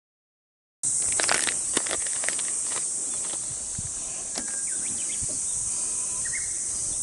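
Silence for about the first second, then a steady high-pitched insect chorus, with a few light clicks and rustles of hands handling fishing tackle in the boat.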